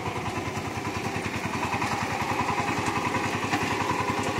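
Farm tractor's engine running with a steady, rapid chug, growing a little louder over the few seconds.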